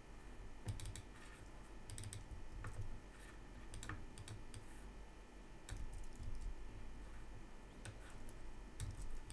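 Keystrokes on a computer keyboard, typed in short irregular bursts with pauses between.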